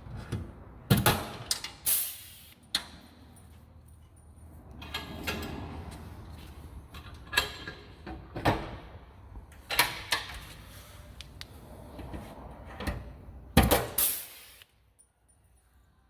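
Irregular sharp knocks and clacks with scraping and rattling in between, from tools and metal fittings being handled against a vehicle's body panel during installation work.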